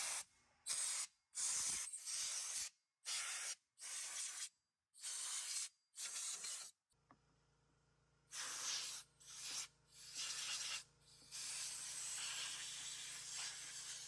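Compressed-air blow gun blowing caked debris out of an old chainsaw in about a dozen short bursts of hiss, the last burst held longer.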